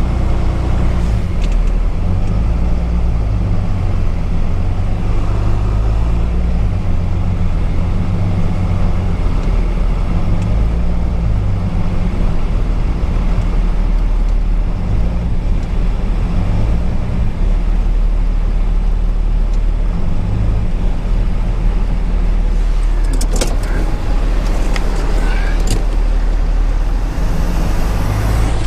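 Ford Super Duty rollback truck driving at highway speed, heard from inside the cab: a steady low drone of engine and road noise. Near the end there are a few sharp clicks.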